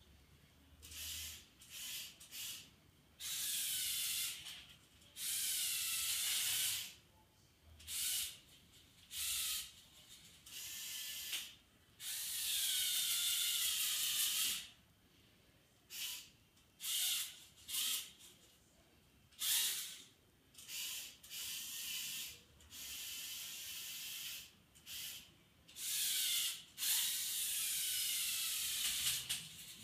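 Small electric motors and gear trains of a LEGO Technic mobile crane whirring in repeated bursts of a half-second to a few seconds, stopping and starting again; the high whine slides in pitch as the motors speed up and slow down while the boom and superstructure move.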